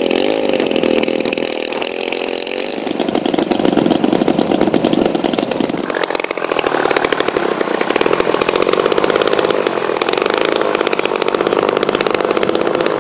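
Engines of giant-scale radio-controlled warbird models running. First a steady idle, then after a change about six seconds in, a large SBD Dauntless model's engine running harder as it taxis and rolls for takeoff.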